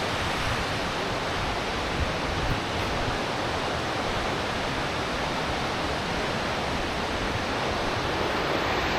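Steady rushing of Dry Falls, a 75-foot waterfall on the Cullasaja River, growing slightly louder near the end.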